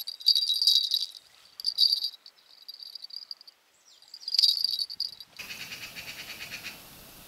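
Insects chirping in repeated bursts of a high, dry trill. About five seconds in the sound cuts to a lower, fast-pulsing buzz, and near the end a steady faint hiss takes over.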